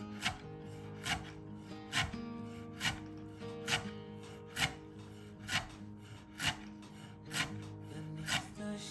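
A knife cutting food on a wooden cutting board, one stroke about every second, over background music.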